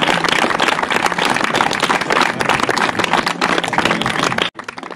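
A crowd of wedding guests applauding, dense hand-clapping that cuts off suddenly about four and a half seconds in.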